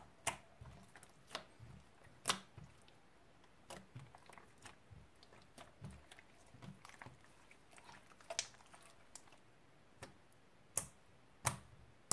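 Hands squishing, stretching and pressing a clear jiggly slime, giving irregular sharp clicks and pops about once a second over soft low squelches, with the loudest pops near the end.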